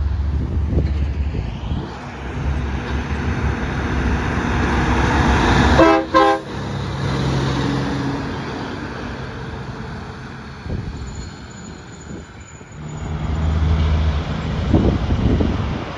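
Semi truck air horn blowing one short blast about six seconds in, over the low rumble of diesel tractor-trailers passing; another truck's engine swells up near the end.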